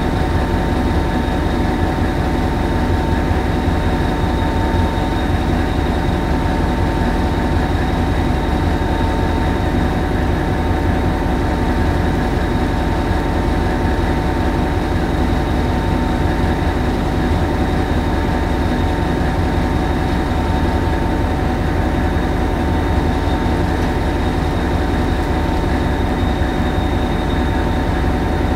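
A Hastings DEMU power car's English Electric 4SRKT four-cylinder diesel engine running steadily, heard from the driving cab, a deep even rumble with a thin steady high whine over it.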